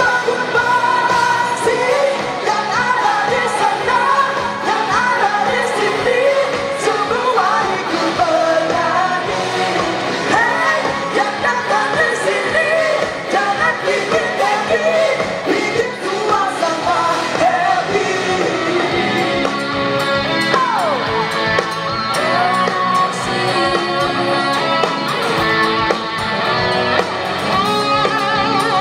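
Live rock-styled duet: a woman and a man singing over a band with electric guitar.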